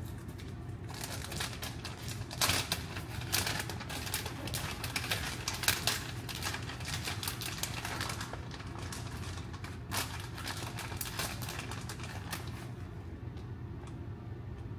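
Turkey burgers frying in a pan, crackling with rapid irregular pops over a steady low hum; the crackling dies down near the end.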